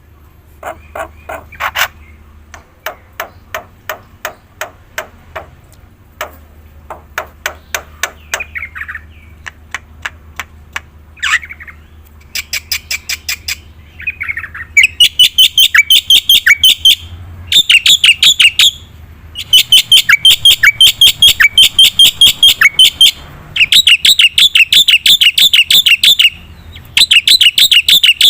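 Black-winged myna (jalak putih) singing hard. It opens with rows of quick clicks and chips, then from about halfway gives loud, very fast repeated high notes in runs of two to three seconds with brief pauses between them.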